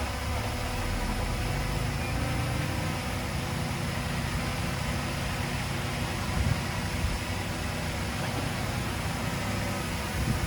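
Diesel engine of earthmoving equipment running steadily, a low, even rumble.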